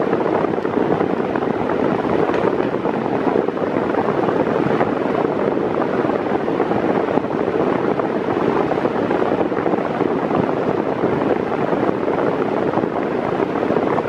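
Mondial Maxi Power Black 140 W 40 cm electric fan running on its lowest speed, a steady rush of air blowing straight onto the microphone.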